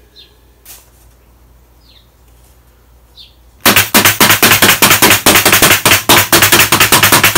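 Bostitch pneumatic stapler firing in rapid succession, several shots a second, driving staples through a thin plywood back into the edges of a plywood cabinet box. The firing starts about halfway through, after a quiet stretch.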